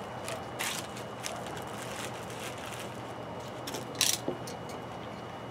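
Handling noises from a tie-down strap being fitted around a PVC pipe frame: a few short rustles and clicks over a steady low hum. The loudest is a sharp rustle about four seconds in.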